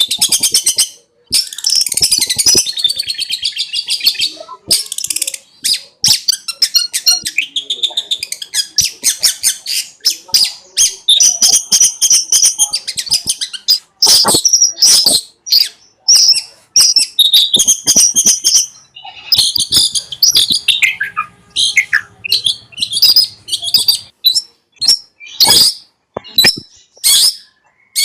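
Long-tailed shrike (cendet) singing a fast, unbroken string of high chirps, trills and harsh chattering notes, in the rapid 'konslet' style.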